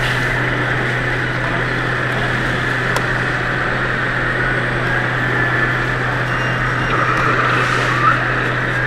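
Simulated diesel truck engine from an RC scale semi truck's sound module, running steadily as the model drives slowly. It plays over a constant hall hum, with a short squeak near the end.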